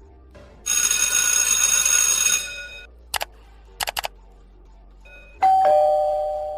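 Sound effects in quick succession: a harsh electric buzz lasting a little under two seconds, a few quick clicks, then a two-tone ding-dong doorbell chime, high note then low, ringing on and fading.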